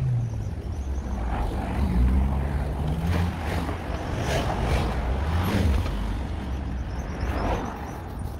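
City street traffic: vehicle engines passing, their hum rising and falling over a steady background of road noise.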